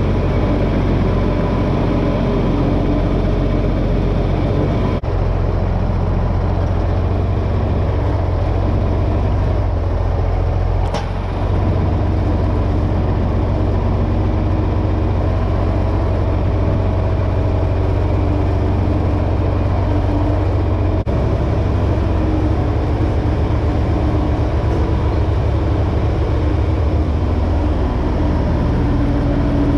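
John Deere 4620 tractor's six-cylinder diesel engine running steadily as the tractor drives. The engine note shifts a little about a third of the way in and again about two-thirds of the way in.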